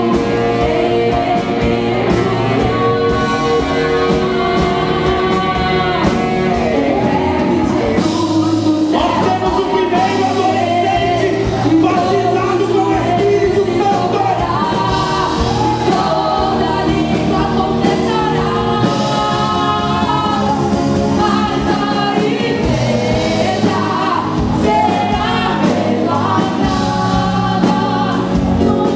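Live gospel worship music: a group singing a melody over a band, continuous and loud.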